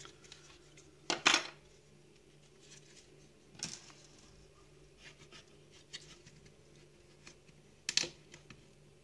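Hard plastic parts of a coffee grinding unit and small metal parts clicking and knocking as they are handled and taken apart by hand. The knocks come irregularly, the loudest about a second in and near the end.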